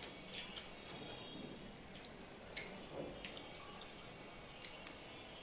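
Faint sounds of eating rice by hand from a ceramic plate: scattered soft clicks and small wet squishes.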